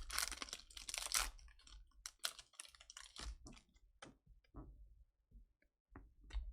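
Chrome trading cards being handled and flipped through: a quick run of small clicks and rustles that thins out about four seconds in.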